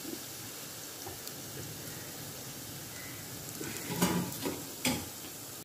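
Vegetable Manchurian balls deep-frying in hot oil in a nonstick pan: a steady sizzle, with a few louder clatters about four and five seconds in.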